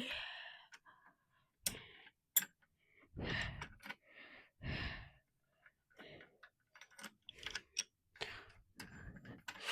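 Parts being handled and fitted together by hand: scattered sharp clicks and light knocks, with a few short scraping, rustling bursts about three and five seconds in.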